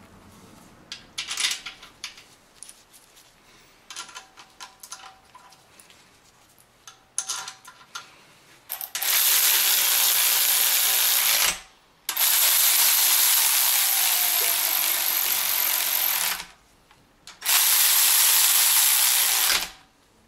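Power ratchet running in the oil pump mounting bolts on a BMW M52 engine block. First come a few short bursts of ratchet clicking, then three long runs of a few seconds each with short pauses between them.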